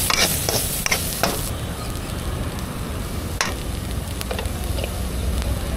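A spoon stirring and mixing sprouts masala in a metal vessel, with scattered clinks and scrapes of metal on metal over a steady hiss.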